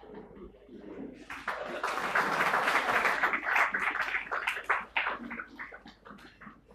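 Audience applauding: the clapping starts about a second in, is loudest in the middle and dies away near the end.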